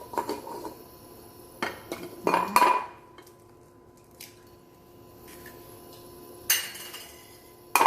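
Metal kitchen utensils and cookware clinking and knocking together, several sharp knocks with a brief ring after the loudest ones, about two and a half seconds in and near the end.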